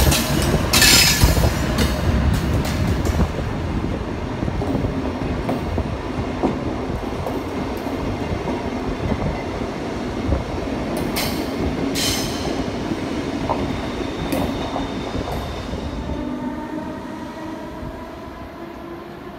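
An ÖBB Class 1144 electric locomotive and its CityShuttle coaches rolling slowly past, the wheels rumbling over the track, with short sharp screeches and clacks about a second in and again around eleven and twelve seconds in. Near the end this gives way to a quieter, steady hum of a few tones from a standing double-deck train.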